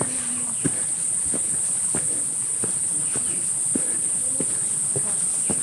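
A steady, high-pitched chorus of insects chirring, with walking footsteps on the trail at about one and a half steps a second.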